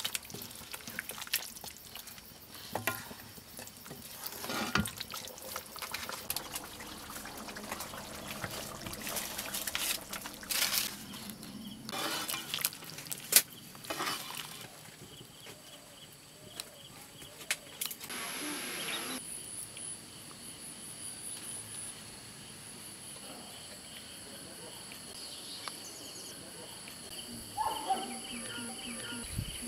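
Wooden spatula stirring chicken curry in a wok: clicks and scrapes against the pan over a wet simmering bubble. About halfway through this gives way to a steady, high, pulsing outdoor drone, with a short call near the end.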